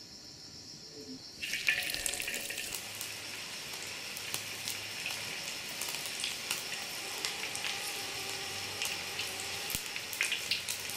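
Batter-coated small fish deep-frying in hot oil in a wok: a sizzle that starts suddenly about a second and a half in and then runs steadily, with many sharp crackling pops.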